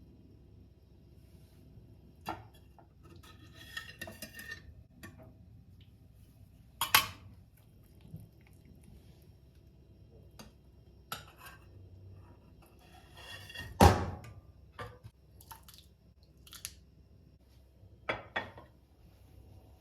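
Dishes and cutlery being handled: scattered clinks and knocks of plates, pots and utensils, the loudest about fourteen seconds in.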